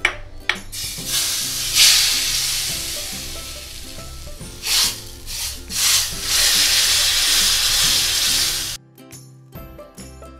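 A hot ghee tadka of mustard seeds, hing and red chilli is poured into a pot of kadhi and sizzles loudly, swelling a few times as it is stirred in. The sizzle stops suddenly near the end.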